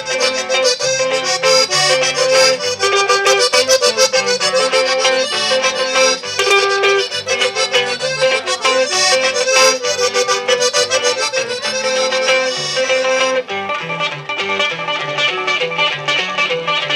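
Live norteño music: an accordion plays the melody over a strummed acoustic guitar and an electric bass line. About three-quarters of the way through, the accordion drops out and the guitar and bass carry on.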